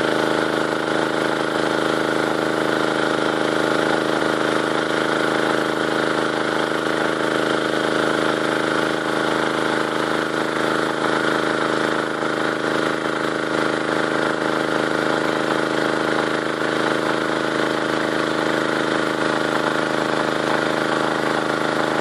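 Four-stroke 6.5 hp petrol engine of a WP 30 water pump running steadily at a constant speed.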